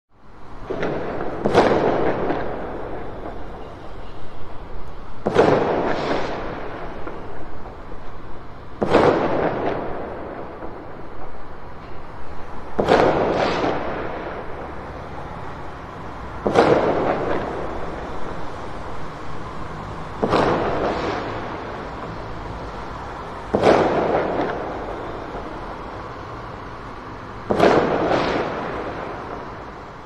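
Distant fireworks going off: eight sharp bangs, about one every four seconds, some as double cracks. Each is followed by a long rolling echo that slowly dies away.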